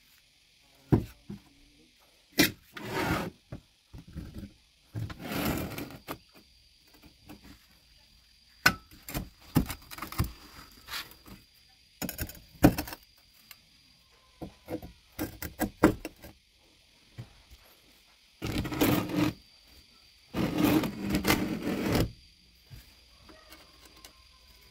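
Steel angle-iron pieces being handled and set up on a workbench: sharp knocks and clinks, and several scraping rubs of about a second each as metal slides against metal and the bench.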